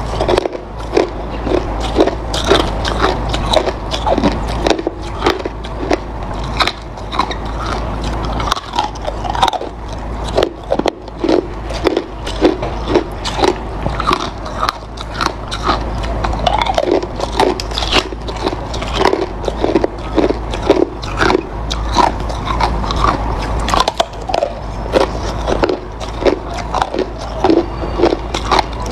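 Hard ice being bitten and chewed close to the microphone: dense, irregular crunching and cracking, several crunches a second.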